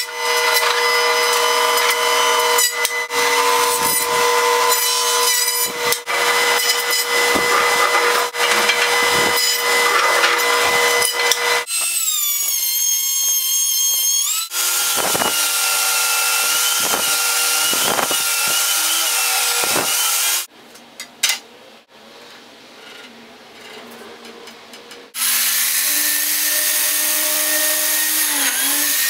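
A run of woodworking power tools working walnut boards: a jointer running and cutting for about the first twelve seconds, then a benchtop thickness planer feeding boards through. After a quieter stretch with a few sharp clicks, a biscuit joiner motor starts, its pitch dipping briefly near the end as it cuts.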